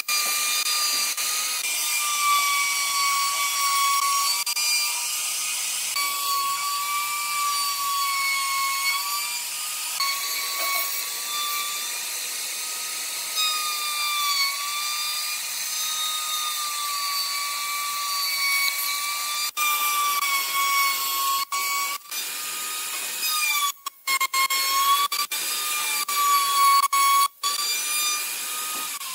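An electric power tool's motor running with a steady high-pitched whine whose pitch sags slightly now and then, as under changing load. Several abrupt cut-outs break the sound in the second half.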